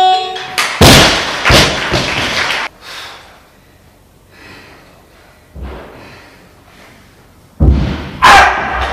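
A short electronic beep, then a barbell loaded with rubber bumper plates is dropped onto the lifting platform about a second in and bounces twice. Near the end another loaded barbell is pulled from the floor, with loud thuds and the clatter of plates.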